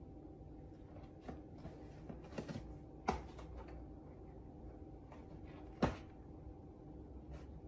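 A cat pawing and clawing at the sides of a torn cardboard box: a few scattered scratchy knocks, two of them louder, over a faint steady room hum.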